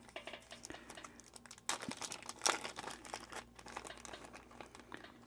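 Faint small clicks and scratches of a tool working a tiny piezo spring into a plastic watch module, with a busier run of clicks about two seconds in.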